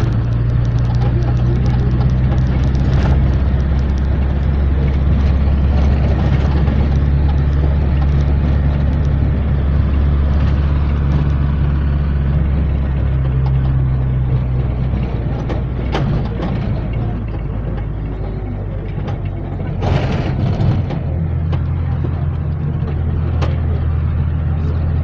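Minibus engine and road noise heard from inside the passenger cabin while the bus drives along: a steady low drone that eases off about halfway through and picks up again in a different note near the end. A few sharp knocks or rattles come through, one at about two-thirds of the way and another shortly after.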